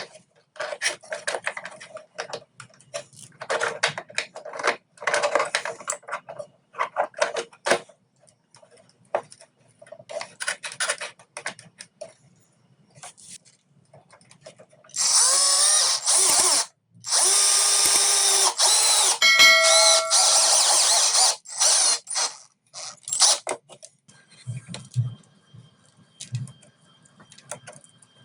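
Small power drill run in many short bursts, then in two longer loud runs whose motor whine shifts in pitch, as parts are drilled or screwed together. Quieter clicks and a few low knocks of handling near the end.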